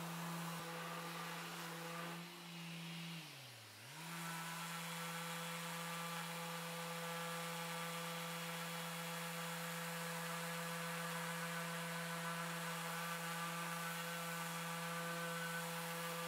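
Electric random orbital sander running steadily as it sands the old finish off cherry wood. About three seconds in, its pitch briefly sags and comes back up.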